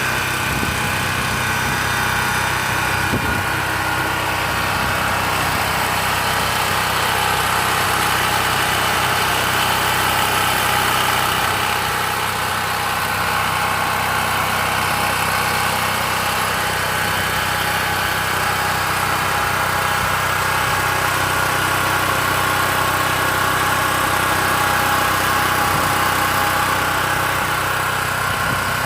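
Open-frame portable generator's engine running steadily at constant speed just after starting; pretty quiet for a big generator.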